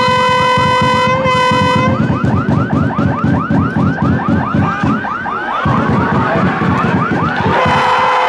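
Horns sounding: a steady held horn tone until about two seconds in and again near the end, over a siren-like rising whoop repeating about four times a second, with a low rattling beneath.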